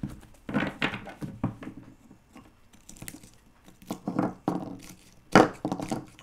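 Tarot cards being handled and laid out: a string of short rustles and taps, the loudest about five seconds in.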